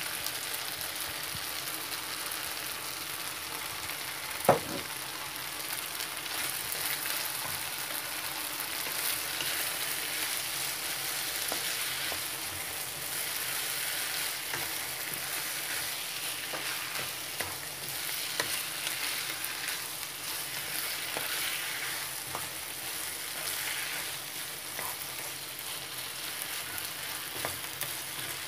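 Chicken, onion and baby corn sizzling steadily in a frying pan as they are stir-fried with a wooden spatula, with small scrapes and taps of the spatula against the pan. One sharp knock comes about four and a half seconds in.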